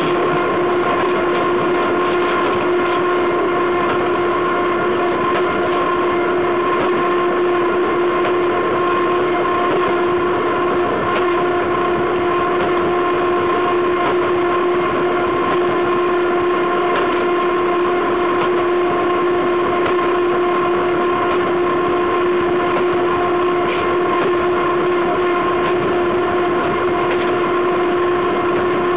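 Freight train's wheels running on the rails at speed, heard from right beside the bogie: a loud, steady rolling rumble with a constant whine held on one pitch and faint scattered clicks.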